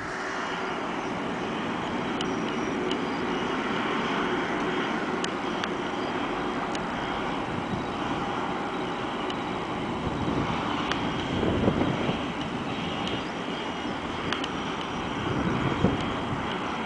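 Boeing 757-200's twin turbofan engines running at taxi power: a steady rushing jet noise with a faint high whine.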